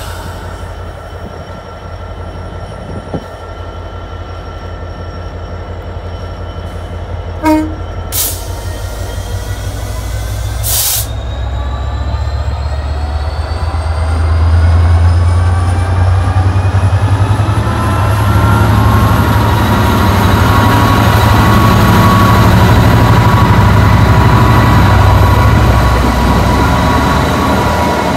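Class 66 diesel locomotive, its EMD two-stroke V12 engine running with a deep steady throb that grows louder as it approaches and passes close by, over a whine that rises slowly in pitch. A brief pitched note sounds about seven and a half seconds in, and a sharp clank comes about eleven seconds in.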